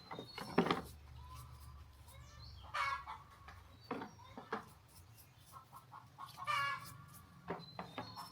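Chickens clucking, with two louder calls about three seconds and six and a half seconds in, over a few scattered light clicks.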